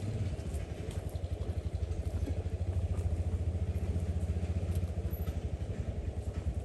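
A small vehicle engine running steadily at low speed, with a fast, even pulsing throb.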